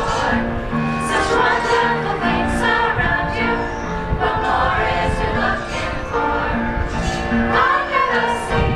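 A mixed school choir of girls and boys singing a song together, with held notes and clear sung consonants.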